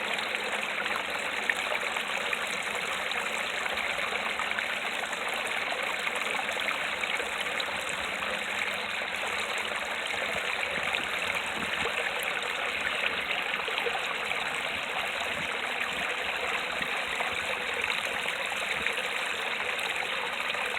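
Creek water falling and splashing over rocks in a small waterfall, a steady, even sound with no change.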